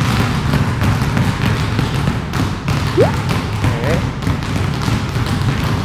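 Several basketballs dribbled at once in a low V-dribble drill on a hard gym court: a dense, unbroken patter of overlapping bounces. A short rising squeak comes about three seconds in.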